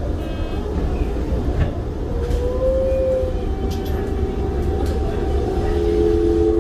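Toei 5300 series electric train running on the rails, heard from inside the car: a steady low rumble of wheels on track with the Mitsubishi GTO-VVVF inverter and traction motors whining in steady tones. One tone glides up and back about two seconds in, and two strong steady tones come in near the end.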